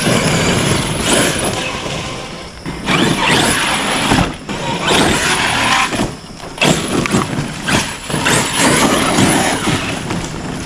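Arrma Outcast 8S RC stunt truck driven hard on loose dirt, its brushless motor whining up and its tyres churning, in bursts of throttle with short let-offs about every second or two.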